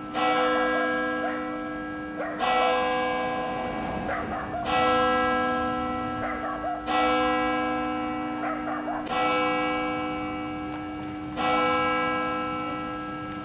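A single large bell tolling slowly, struck six times at an even pace of about one stroke every two and a quarter seconds. Each stroke rings on with many overtones and fades before the next.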